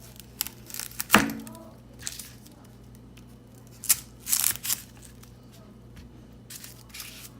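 Chef's knife cutting the ends off a red onion on a cutting board: a few sharp knocks of the blade on the board, the strongest about a second in, with short crackles of the dry onion skin tearing.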